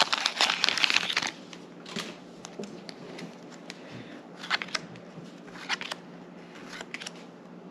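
Foil wrapper of a Pokémon booster pack crinkling for about the first second, then quieter handling of trading cards with a few short, sharp flicks and slides.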